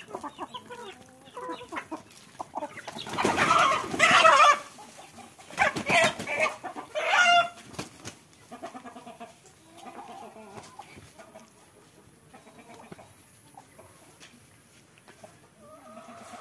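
Chickens clucking, then loud alarmed squawking with wing flapping from about three to eight seconds in as a hen is caught by hand; softer clucking follows.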